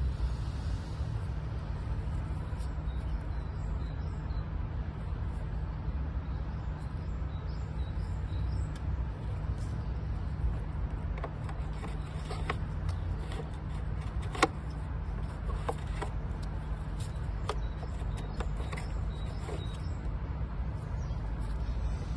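A steady low rumble, with light clicks and taps scattered through the second half.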